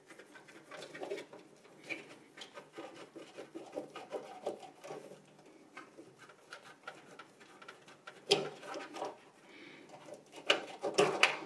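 Molex power connectors and their wiring being worked loose from a server's SATA drive backplane by hand: small plastic clicks, scrapes and cable rustle. A sharper click comes about eight seconds in, and a cluster of louder clicks comes near the end.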